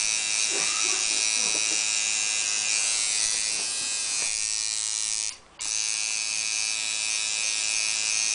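Electric tattoo machine buzzing steadily as it inks an outline into skin. The buzz cuts out briefly about five seconds in, then resumes.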